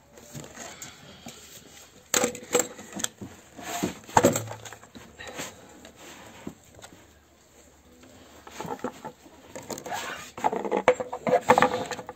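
Handling noises from a plastic drink bottle and a metal tray: irregular clicks, knocks and crinkling, busiest about two seconds in and again in the last few seconds.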